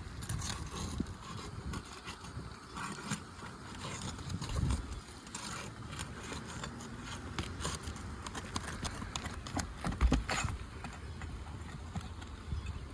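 Roofing nails being pried out from under asphalt shingles: irregular knocks, clicks and scraping of a tool against nails and shingles, with one louder knock about ten seconds in.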